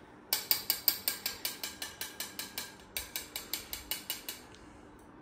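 A metal spoon clinking quickly against a small steel bowl, about six clinks a second, as food is stirred in it. There is a brief pause near the middle.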